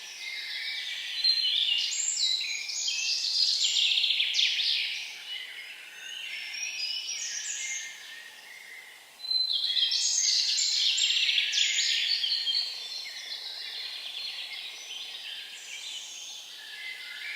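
Songbirds singing: quick, trilling song phrases, one after another, with a louder song starting about nine seconds in.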